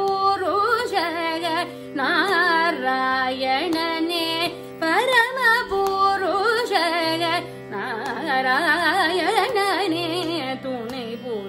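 A woman's Carnatic vocal in raga Shuddha Hindolam: sung phrases whose notes waver and slide in heavy ornaments, broken by short breaths, over a steady drone.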